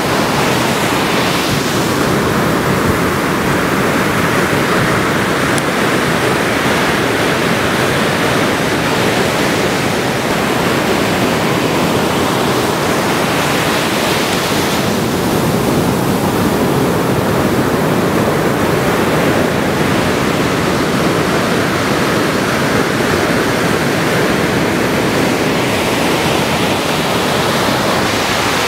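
Ocean surf: a steady wash of breaking waves that swells a little about every twelve to thirteen seconds.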